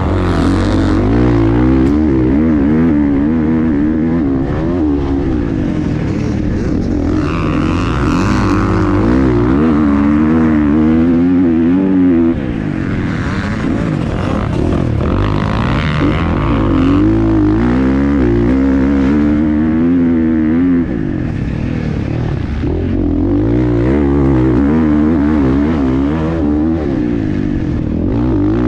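Dirt bike engine heard close up from the rider's helmet camera, revving up and falling back over and over as it accelerates and shifts through the sand. The level drops briefly about twelve seconds in and again about twenty-one seconds in.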